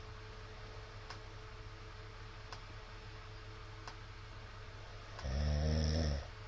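A middle-aged man snoring in his sleep: one loud, low snore lasting about a second, starting a little after five seconds in. Under it run a steady low hum and faint clicks about every second and a half.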